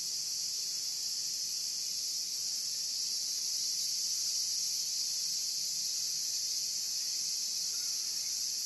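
Insect chorus: a steady, high-pitched drone of many insects calling at once, without a break.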